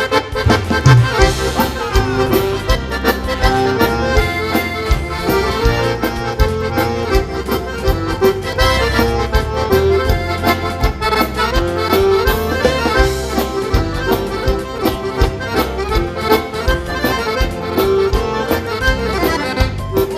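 Instrumental gaúcho dance-band music led by an accordion, with a steady beat.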